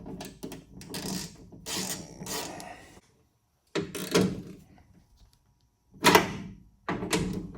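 Hand tools working on the window regulator mounting bolts inside a car door: metallic clicking and rattling in several short bursts, broken twice by sudden silence.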